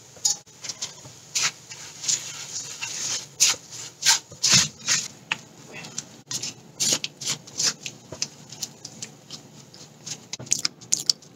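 Silicone spatula stirring chili sambal paste in an oiled metal wok, a quick, irregular run of short scraping strokes.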